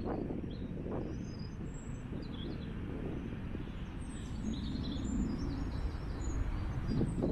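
Wind rumbling on the microphone, with small birds chirping here and there in short, high calls.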